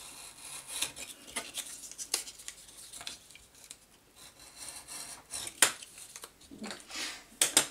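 A knife cutting the striker strip off a cardboard matchbox: intermittent light scraping with scattered short clicks, the sharpest clicks near the end.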